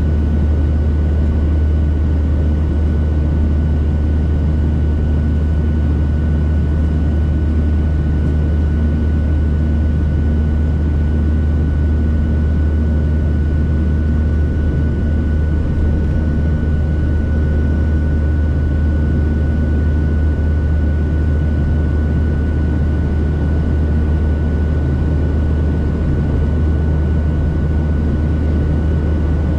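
Steady cabin noise of a Boeing 737-700 in flight: a deep, unchanging rumble from its CFM56-7B engines and the airflow, with a thin steady whine on top.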